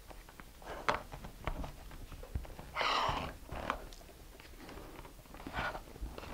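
Quiet handling noises from a cardboard rocket body tube: small clicks as a removable plastic rivet is pushed down into its hole, and a few brief scuffs and rustles as the tube is gripped and twisted to test the joint.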